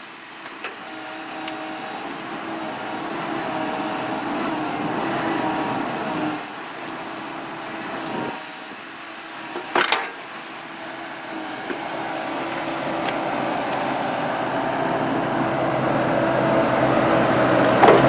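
Excavator's diesel engine running under load with its hydraulics working as the bucket digs into clay soil, the hum swelling and dipping with the work. A sharp knock about ten seconds in, as the bucket curls up a load of dirt.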